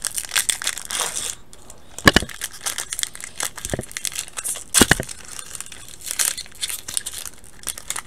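Pokémon booster pack's foil wrapper being handled and torn open, crinkling and crackling irregularly, with two louder thumps about two and five seconds in.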